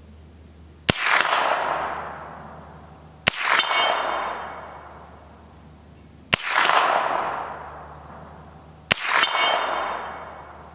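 Four single 9mm shots from an MP5, a few seconds apart, each followed by the clang of a thin AR450 steel gong ringing and fading over about two seconds.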